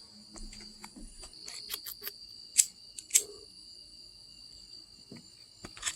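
Steady high-pitched insect chorus, typical of crickets, with a scatter of short clicks and taps, two sharper ones about two and a half and three seconds in.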